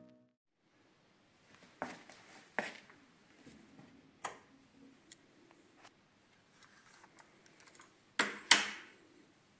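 Mechanical clicks and clunks from operating a vintage Sansui SC 3110 cassette deck's transport controls and cassette mechanism: single clicks about two, three and four seconds in, then a louder double clunk near the end.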